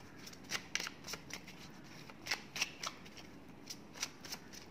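Cards being handled, drawn and laid down, giving short crisp flicks and taps. There are three quick groups of about three each.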